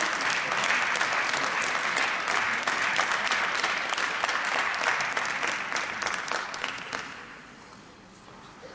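Audience applauding in an ice arena, with single claps standing out; the applause dies away about seven seconds in.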